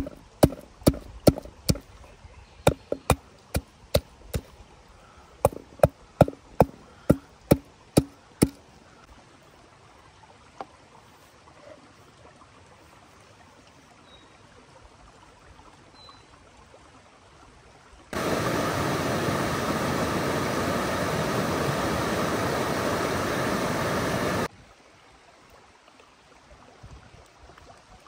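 A run of about twenty sharp knocks, two or three a second, over the steady sound of a flowing stream; they stop after about eight seconds. Later a loud, even rushing noise comes in abruptly, lasts about six seconds and cuts off suddenly.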